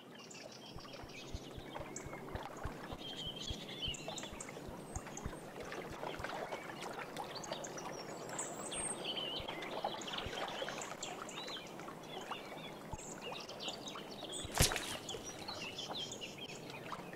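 Pond-side ambience with small birds chirping. About three-quarters of the way through comes a single sharp splash as a rubber ball drops off a wooden dock into the water.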